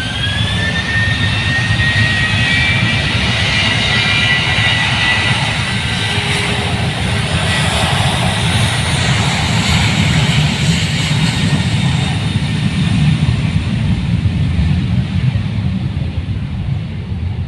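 An airliner's engines at high power: a rising whine that levels off about a second in, then a loud, steady roar with a deep rumble.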